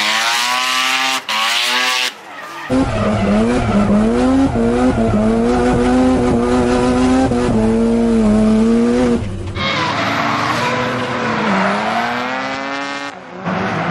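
Mazda RX-7 FD drift cars on the throttle through slides, the engine note rising and falling over the hiss and squeal of spinning rear tyres. For several seconds in the middle it becomes a steadier, lower engine drone with a deep rumble, heard from inside the cabin, then changes back to the outside sound.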